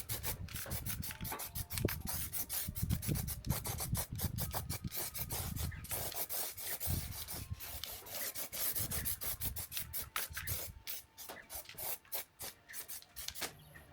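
Quick, irregular hand rubbing or scraping strokes on the car body's bare sheet metal, many strokes a second, easing off and becoming sparser near the end.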